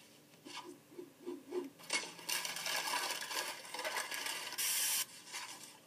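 Soundtrack of a comedy clip compilation playing through a laptop's speakers: a few faint knocks, then about three seconds of noisy clatter and scraping that ends in a short hiss.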